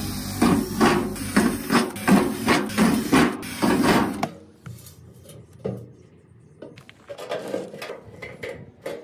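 Cordless drill boring holes through the thin sheet metal of an 18-litre paint can, in a string of short, sharp pulses about two and a half a second for roughly the first four seconds. After that only faint clicks and handling sounds.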